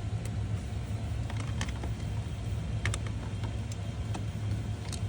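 A few short metal clicks and taps of a screwdriver and screw being worked into a printer part, over a steady low hum.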